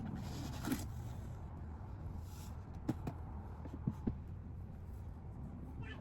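Hands working on a doll's weighting pouch: light rustling and handling noise with a few sharp small clicks about three and four seconds in, over a steady low hum.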